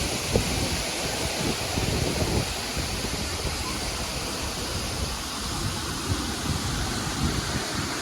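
Bhimlat waterfall: a steady rush of falling water, with irregular low rumbling underneath.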